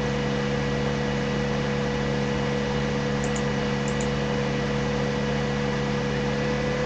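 Steady electrical hum with a few fixed tones over an even hiss: background room tone, with two faint high ticks near the middle.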